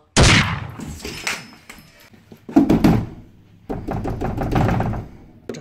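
Hand banging and knocking on a closed interior door in three sudden bouts of thumps.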